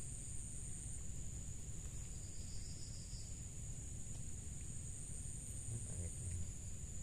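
Insects droning steadily at a high pitch, with a constant low rumble underneath.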